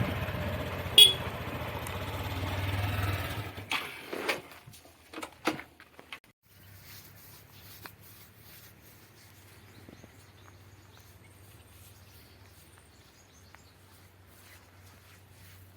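A vehicle engine running with a short sharp beep about a second in. The engine sound stops abruptly after about four seconds, leaving a few scattered clicks and knocks and then a faint steady low hum.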